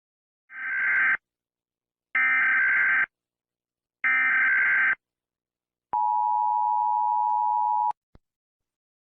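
Emergency Alert System tones: three separate one-second bursts of the SAME digital header, a warbling data screech. Then the two-tone attention signal is held steady for about two seconds and cuts off abruptly, followed by a tiny click.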